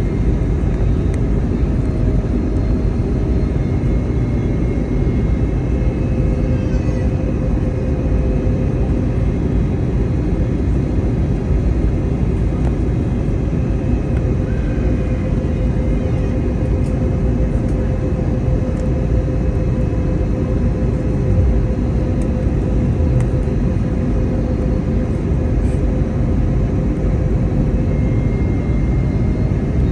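Airbus A320neo cabin noise: a steady rumble of airflow and engines heard from inside the passenger cabin, with a faint engine hum whose pitch rises slightly near the end.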